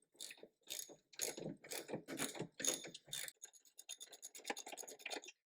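Socket ratchet driving a bolt: back-and-forth strokes of clicking about twice a second, then a fast run of ratchet clicks for the last two seconds.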